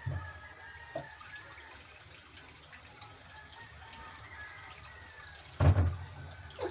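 Faint watery dripping and bubbling from a pot of chicken and water heating on an electric hob. There is a loud knock about five and a half seconds in and smaller knocks near the start.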